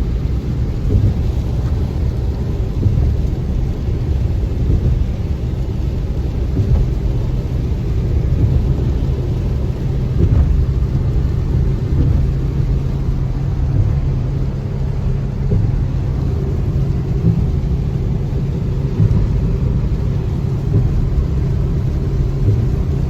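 Car driving on a wet road: a steady low rumble of road, tyre and engine noise with small irregular bumps.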